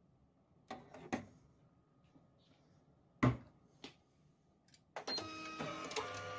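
A few clicks and knocks at the machine, the loudest a little after three seconds in. About five seconds in, a multifunction office photocopier starts a copy run, its motors running with a steady hum and several steady whirring tones.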